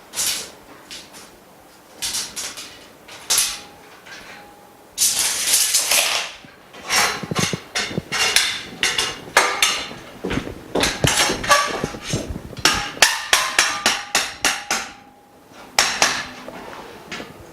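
Frame bars of a workbench frame being fitted and knocked into place: a few separate knocks, a short scrape, then a fast run of knocks and clacks for several seconds, and one last knock near the end.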